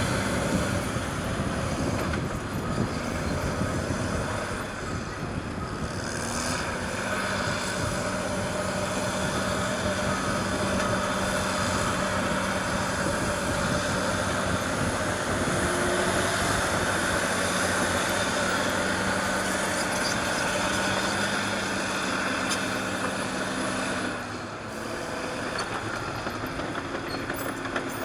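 Caterpillar D6R crawler bulldozer working, its diesel engine running steadily under load with the clatter of its steel tracks. A steady engine drone holds through the middle and drops in loudness briefly about 24 seconds in.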